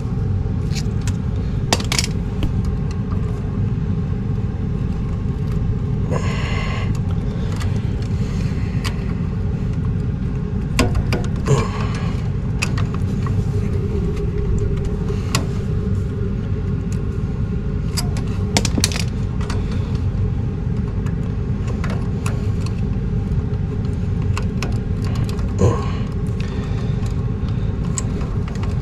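Scattered small clicks and metallic rattles of wire terminals and plug connectors being handled and tugged inside a gas furnace, checking for loose connections, over a steady low rumble.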